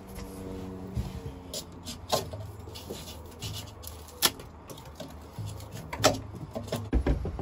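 Handling noise from work at a drilled hole in a steel boat deck: a few scattered knocks and clicks over a low steady hum.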